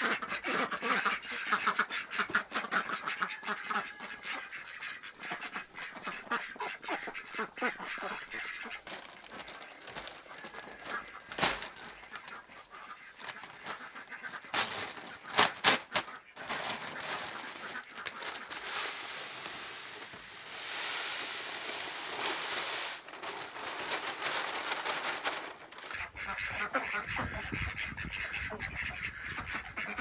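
A flock of domestic ducks quacking, with some goose honking mixed in. A few sharp knocks come about eleven and fifteen seconds in.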